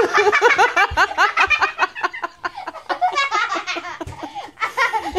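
Children laughing hard: a fast, almost unbroken run of high-pitched giggles, easing briefly about halfway through.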